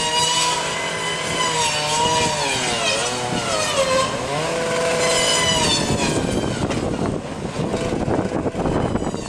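Chainsaw cutting into a fallen tree, its engine pitch sagging under load and rising again several times, then running rougher and noisier near the end.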